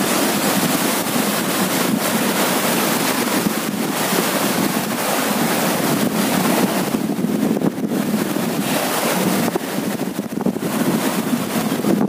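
Sea surf washing against shore rocks, with wind blowing across the microphone, as a steady rushing noise.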